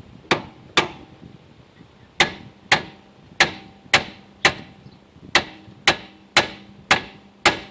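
Hammer blows on steel: two sharp strikes, a pause, then ten more about half a second apart, each with a short metallic ring, knocking at the old trailer axle to free it after its mounting bolts are out.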